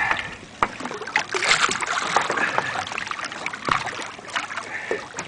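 Water splashing and sloshing against a boat's hull as a hammerhead shark, roped by the tail, thrashes at the surface, with many irregular short splashes.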